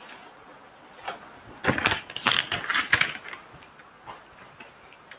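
A quick, irregular run of sharp clicks and taps, bunched together in the second and third seconds, with a few single clicks before and after.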